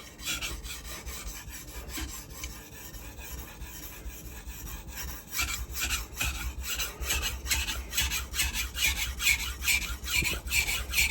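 Knife blade being sharpened on a wet 1000-grit whetstone: back-and-forth strokes of steel rasping across the stone, fairly quiet for a sharpening stone because of the finer grit. The strokes grow louder and more even from about halfway, at about two a second.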